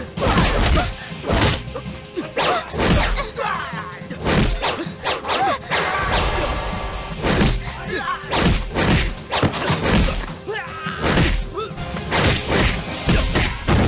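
Film fight sound effects: a quick string of punch and kick hits, whacks and thuds, over action music.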